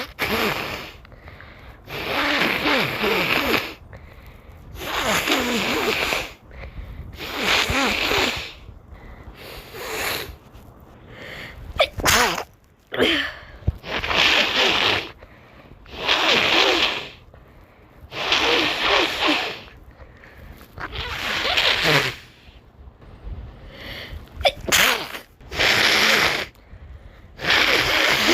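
Person sneezing over and over, about a dozen sneezes in a row, one every two seconds or so, each a short burst of breath and voice. A couple of sharp clicks fall between them.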